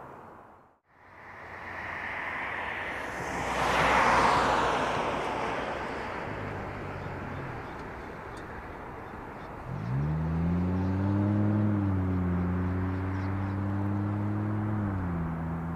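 A vehicle goes by with a rush of noise that swells and fades. About ten seconds in, an engine revs up and holds a steady hum, then drops in pitch near the end.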